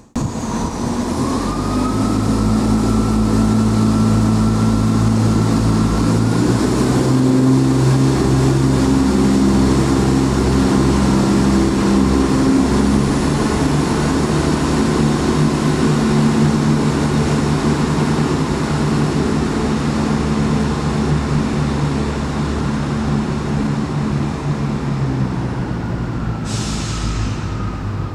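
Class 170 Turbostar diesel multiple unit's underfloor diesel engines running under power as the train moves along the platform, with a high whine that rises about a second in and the engine note stepping up about six seconds in. A short hiss near the end.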